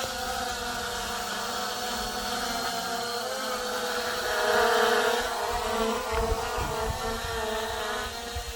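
P11 GPS drone hovering close overhead, its brushless motors and propellers giving a steady buzzing whine whose pitch drifts a little; it swells loudest about halfway through. Wind rumbles on the microphone in the second half.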